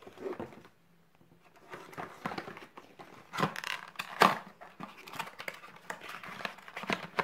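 Cardboard box being handled and its end flap pulled open: rustling and scraping of cardboard with sharp knocks, the loudest two about three and a half and four seconds in.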